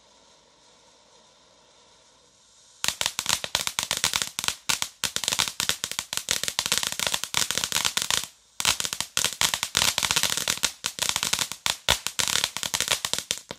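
Ground fountain firework hissing faintly, then about three seconds in breaking into loud, dense, rapid crackling. The crackling pauses briefly about two-thirds of the way through and cuts off suddenly at the end.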